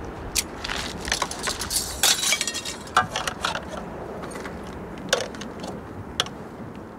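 Metal pots, cups and utensils clinking and knocking against each other as they are washed by hand in a plastic tub of soapy water, with some splashing.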